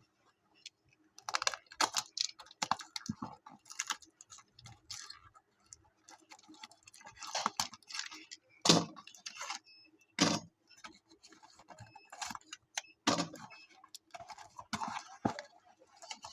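Medicine strips and their packaging being handled: irregular crinkling, rustling and clicking, with a couple of louder snaps about nine and ten seconds in.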